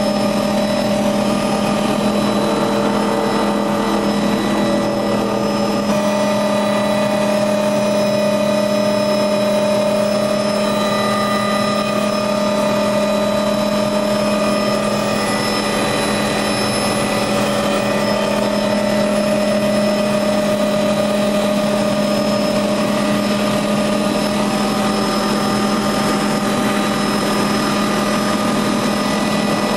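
Hughes 500D helicopter in flight, heard from inside the cabin: a steady drone of its Allison 250 turboshaft engine and rotor. There is a strong low hum with several steady whining tones above it, unchanging throughout.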